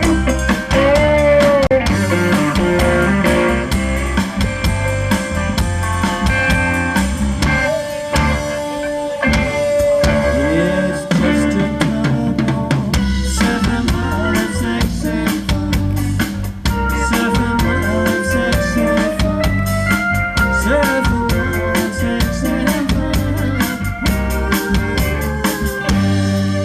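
Live rock band playing an instrumental passage: a drum kit keeps a steady beat under bass and electric guitar, with no vocals.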